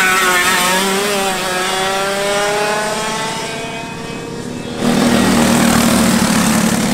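Shifter karts' two-stroke engines buzzing loudly around the track, one engine climbing steadily in pitch as it accelerates. About five seconds in, a louder, denser engine buzz abruptly takes over.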